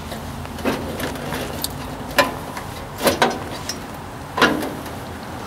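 About five separate sharp knocks and clicks of hand work on a Ford 800 tractor's sheet-metal hood and its bolts as the panels are lined up and fastened, over a steady low hum.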